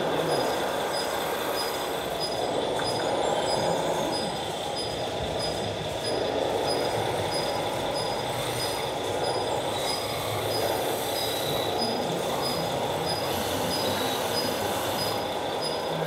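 Small electric motors and gearboxes of radio-controlled model construction machines running, a steady whirring and grinding, with a faint high tick repeating about one and a half times a second.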